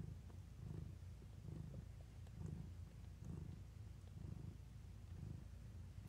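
Domestic mother cat purring while nursing her newborn kittens: a faint, low purr that swells and fades about once a second.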